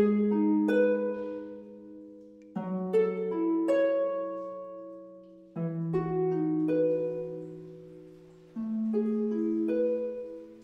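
Background music: slow plucked chords, a new one struck about every three seconds and left to ring and fade, with a few higher notes picked out after each.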